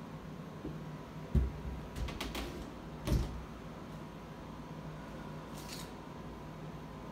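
A metal doorknob being turned and rattled on a door, then a knife worked against the door near the latch. There is a thump about a second and a half in, a few quick clicks, a sharper knock about three seconds in, and a short scrape later on.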